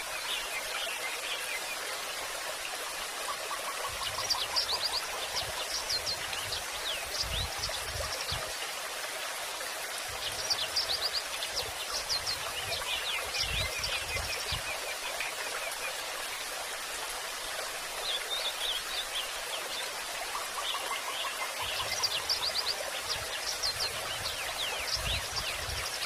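A songbird singing in repeated bouts of quick chirps and trills over a steady rush of flowing water.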